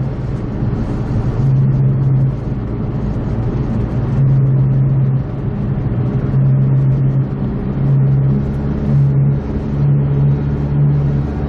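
A 2004 PT Cruiser GT's front wheel bearing gives a low humming drone over road and engine noise inside the cabin while the car turns left. The drone comes and goes every second or two. It is the sign of a worn wheel bearing.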